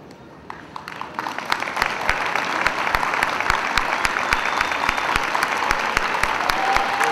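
Audience applauding: clapping starts about half a second in, swells over the next second or two, then holds steady, with many sharp individual claps standing out.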